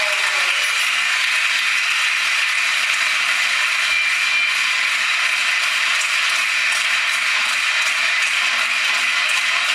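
Steady crowd din in a basketball sports hall during play, an even wash of many spectators' voices with no single voice standing out.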